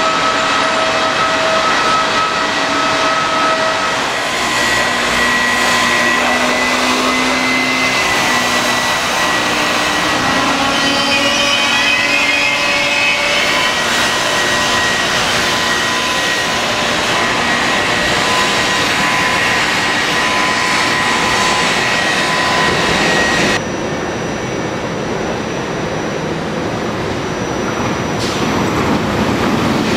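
Electric trains moving through a railway station: an electric locomotive gives a steady whine over wheel-on-rail noise, with the tones gliding in pitch for a few seconds midway. After a sudden cut, a Frecciargento high-speed train approaches with a rising rumble near the end.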